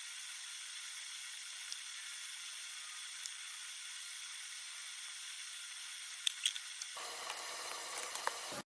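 Steady hiss with a few light clicks about six seconds in; the sound cuts off abruptly just before the end.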